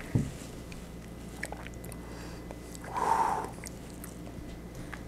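Quiet mouth sounds of whiskey being sipped and swallowed, with small clicks and a short breathy burst about three seconds in, over a steady low room hum.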